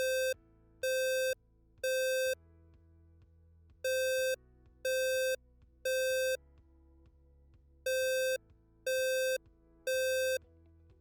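EA60 evacuation amplifier's alert tone played through a small 1-watt speaker: a harsh, buzzy beep of about half a second, sounded three times in quick succession, then a pause, with the group of three repeating three times. This is the temporal-three evacuation signal pattern that comes before an emergency evacuation message.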